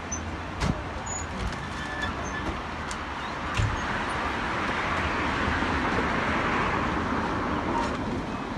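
Heritage double-decker tram running close by: a steady low rumble, with a hiss that swells from about three and a half seconds in and eases near the end. A single thump comes just as the swell begins.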